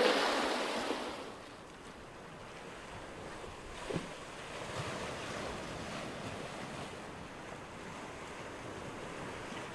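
Sea waves washing on a shore, a steady surf hiss. A loud horn blast is dying away at the very start, and there is one short blip about four seconds in.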